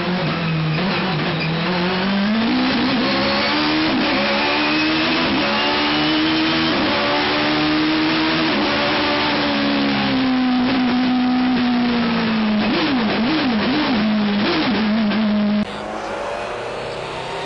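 Judd racing V8 in a BMW E36 hillclimb car, running hard. The engine note climbs steeply, holds high for several seconds, eases down, then rises and falls quickly several times. Near the end it cuts abruptly to a steadier, quieter engine tone.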